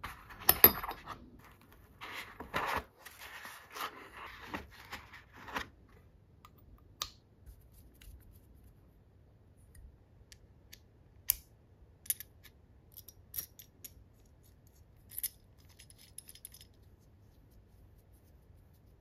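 Small metal engine-model parts clinking and rattling against each other as they are lifted out of a foam-lined tray and handled, busiest over the first six seconds. After that, only scattered light metal clicks and ticks as the parts are fitted together.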